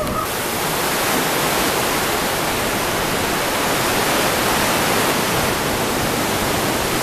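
Ocean surf washing in among pier pilings: a steady, loud rush of breaking waves and foaming water.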